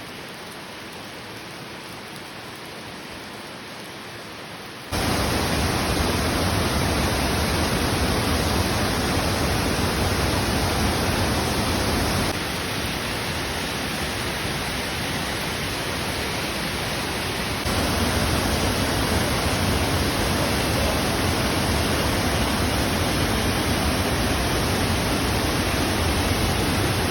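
Heavy rushing water, a steady even roar with no distinct strokes or tones. It jumps abruptly much louder about five seconds in, drops a little around twelve seconds and comes back up around eighteen seconds.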